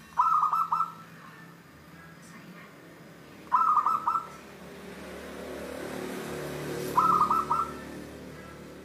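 Caged zebra dove (perkutut) cooing: three short phrases about three and a half seconds apart, each a quick run of clipped notes.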